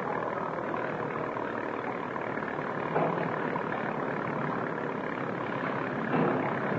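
Motorboat engine running steadily as the boat comes in, with a couple of faint knocks about three and six seconds in.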